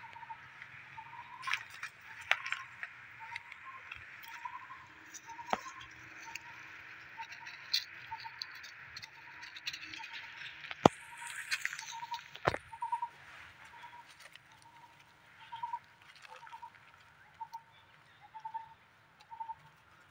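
Outdoor ambience: a steady high drone, insect-like, fades about two-thirds of the way through. Over it, short chirps repeat roughly every second, and there are scattered sharp clicks, the loudest a little past the middle.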